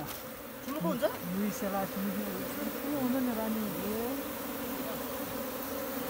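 A colony of wild honey bees buzzing, a steady hum with individual bees flying close past, their buzz rising and falling in pitch as they pass.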